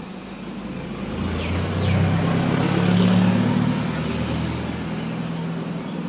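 A motor vehicle passing by, its engine sound swelling to a peak about three seconds in and then fading away.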